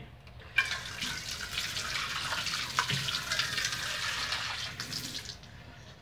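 Water running from a tap into a laundry sink, starting about half a second in and easing off shortly before the end, with a few light knocks of a plastic cup being handled under the stream.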